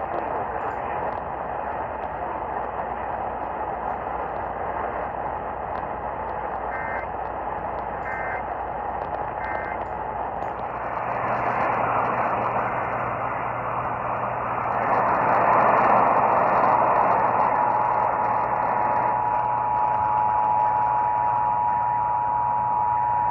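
Static-laden radio reception carrying an Emergency Alert System broadcast: three short digital data bursts about a second and a half apart (the SAME header), then, about 17 seconds in, the steady two-tone EAS attention signal starts and holds, marking the start of an alert.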